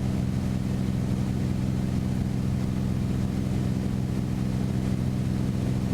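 Single piston engine and propeller of a Beechcraft Bonanza running steadily in flight, a constant low drone with a steady hum.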